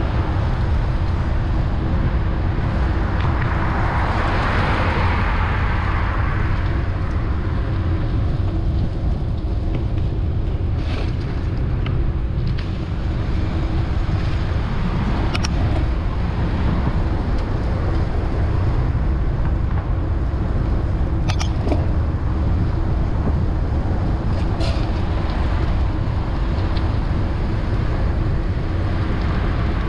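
Steady wind rumble on the microphone of a moving bicycle, mixed with city traffic noise. A car passes about four to six seconds in. A few brief sharp ticks come in the second half.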